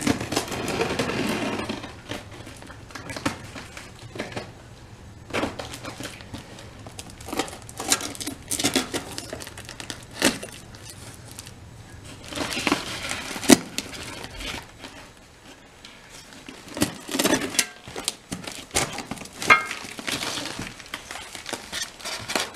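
Unpacking and handling noises: packaging crinkling and rustling, with scattered knocks and clicks of parts being handled.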